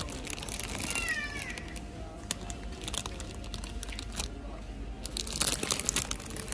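Plastic bread bags crinkling and rustling as a hand handles and shifts them on the shelf, loudest near the end. A short high-pitched call sounds about a second in.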